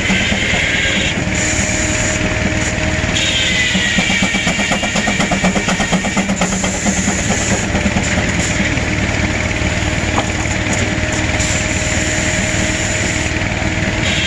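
Big Advance-Rumely steam traction engine running under load, belt-driving a circular sawmill through hardwood: a fast, steady beat of exhaust under a high saw whine that sags in pitch several times as the blade takes the cut.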